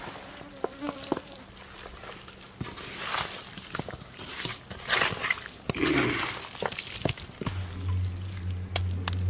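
A fly buzzing close by, a steady hum that gets much louder near the end, over soft wet squelching as spiced chicken pieces in marinade and oil are mixed.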